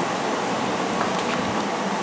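Kintetsu electric commuter train drawing slowly into the station, its running noise a steady, even hum.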